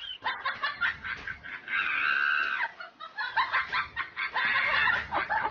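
High-pitched animal calls: a rapid run of short, bending calls, with a longer held call about two seconds in and another near the end.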